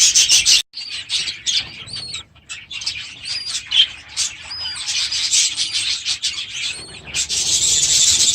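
Budgerigars chirping: a string of short, high, arched chirps. A dense raspy chatter fills the first half-second and comes back about seven seconds in.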